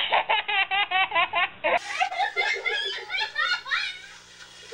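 A baby laughing in a quick run of short, even bursts, about five a second, cut off about two seconds in. It is followed by other laughter, denser and more irregular, which tails off near the end.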